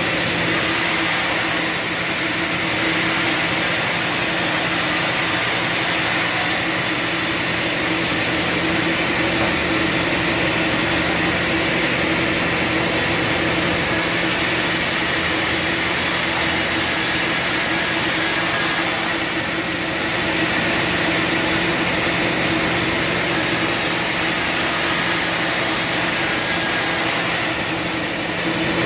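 Bandsaw sawmill running steadily, its band blade sawing through wood: a constant machine hum under a high hiss, easing briefly twice.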